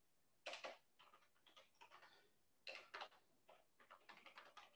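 Faint computer keyboard typing: a run of irregular key clicks as a web address is typed.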